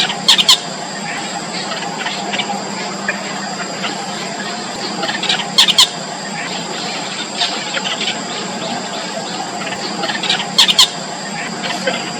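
Four-day-old nestlings begging with short, high-pitched squeaky calls. They come in three brief bursts about five seconds apart, with fainter peeps between them and a steady high background tone.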